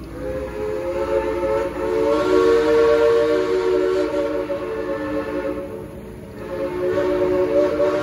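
Steam train whistle blowing long blasts, several notes sounding together as a chord. It fades about six seconds in and sounds again a second later.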